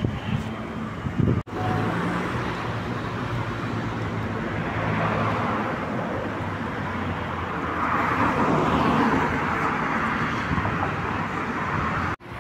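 Street traffic with a car engine running at a steady low hum; road noise swells and fades about eight to ten seconds in. The sound breaks off briefly twice, about a second and a half in and just before the end.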